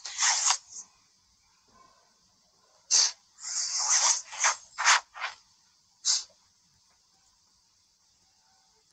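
A woman crying without words: a run of short, sharp sniffs and shaky breaths, bunched around three to five seconds in.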